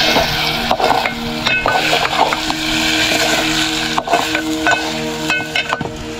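Food sizzling as it fries in a pan, with a spoon scraping and knocking against the pan as it is stirred at an irregular pace.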